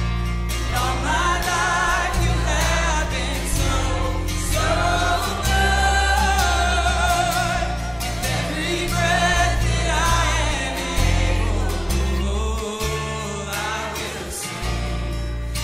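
Live worship band playing a contemporary Christian worship song, with singing that wavers in pitch over long held bass notes.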